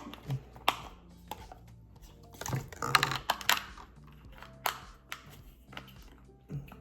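Scattered sharp clicks and crackles of a plastic ice-cream container and spoon being handled, with a denser crinkling patch about three seconds in.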